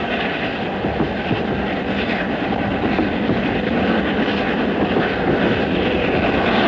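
A C62 steam locomotive running, heard from the cab: a loud, steady rumble and clatter of the wheels on the rails and the working machinery.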